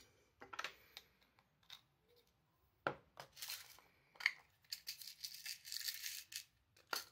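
Faint handling noises at a fly-tying vise: several small clicks and knocks, with a longer scratchy rustle a little past the middle.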